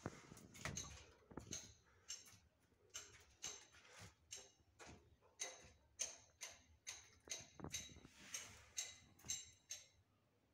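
Faint run of short scraping clicks, about two or three a second, as the PVC sheath of 1.5 mm twin-and-earth cable is cut and stripped back. The clicks stop shortly before the end.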